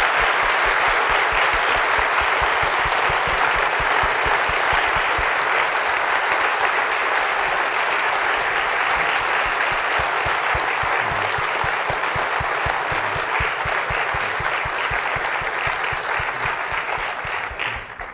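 Large audience applauding steadily, the applause dying away near the end.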